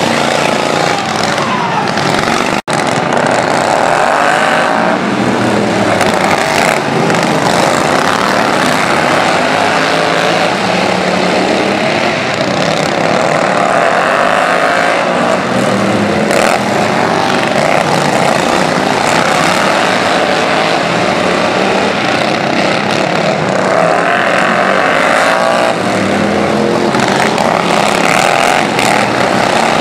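Several racing lawn tractors' small engines running hard and revving, their pitch rising and falling as they pass. The sound cuts out for an instant about two and a half seconds in.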